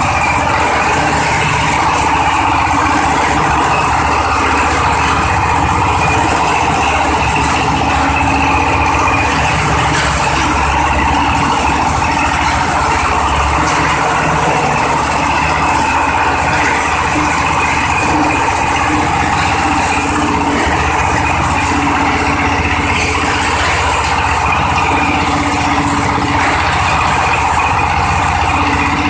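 Coconut-husk decorticator running under load: its single-cylinder diesel engine and spinning beater drum make a loud, steady mechanical din as husks are shredded into fibre.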